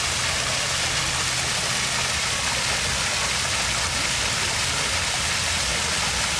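Stream water flowing steadily: an even rushing hiss with a low rumble beneath it.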